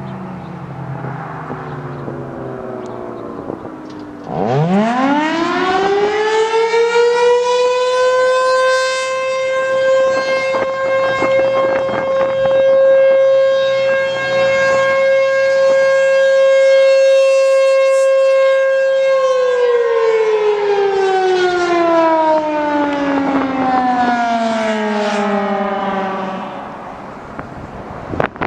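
Federal Signal Thunderbolt 1000 outdoor warning siren sounding its weekly test. About four seconds in it winds up fast to a loud, steady single tone. It holds that tone for about twelve seconds, then winds down in a long falling glide that fades out near the end.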